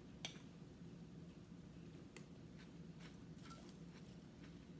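Near silence: faint room hum with a few soft clicks of a metal spoon in a ceramic cereal bowl, the clearest about a quarter second in.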